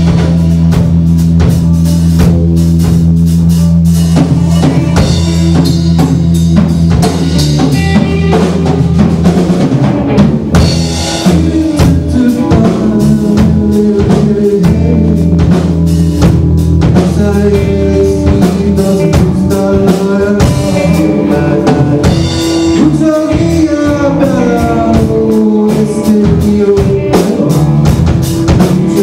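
Live rock band playing a blues-rock instrumental jam, with a drum kit, bass guitar and electric guitar. The drums keep up a steady stream of hits under held bass notes, and sliding guitar bends come in during the second half.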